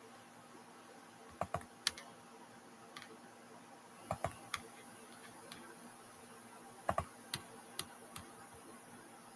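Computer keyboard keys being pressed: about a dozen sharp, scattered clicks at uneven spacing, some in quick pairs, over a faint steady hiss.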